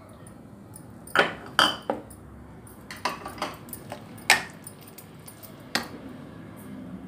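Steel spoon clinking and scraping against the bowl while mixing chicken pieces into a thick, wet masala paste with cornflour. About six sharp clinks at uneven intervals, the loudest about four seconds in.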